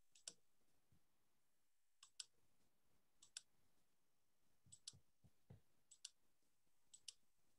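Faint computer mouse clicks, often in quick pairs, scattered about once a second against near silence.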